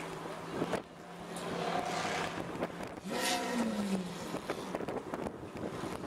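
Lamborghini Aventador's V12 engine running at low revs as the car pulls away slowly. About three seconds in, a short rev blip rises and then falls away in pitch over about a second.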